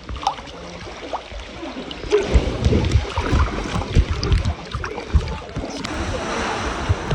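Water splashing and sloshing close to the microphone, with irregular low thumps, louder from about two seconds in.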